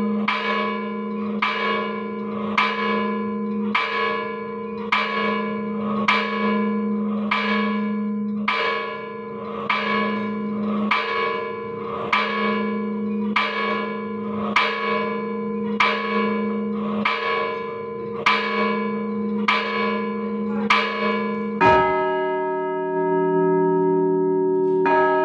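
A tower bell tolled at a steady pace, about one stroke every 1.2 seconds, the same note each time, with its hum ringing on between strokes. About 22 seconds in, a different, lower-pitched bell is struck and rings out, and it is struck again near the end.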